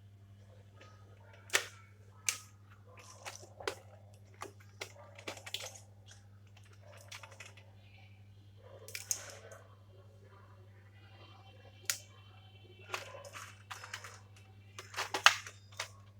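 Irregular clicks, snaps and rustling of a pencil box and its packaging being handled and opened, with sharp clacks about one and a half seconds in, near twelve seconds, and the loudest near the end.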